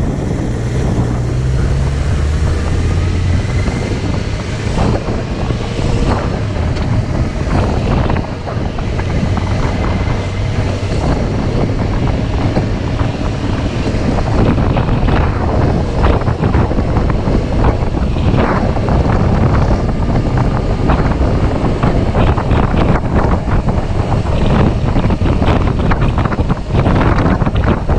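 Heavy wind buffeting the microphone: a loud, constant rumble with crackling gusts, over a low steady hum in the first few seconds.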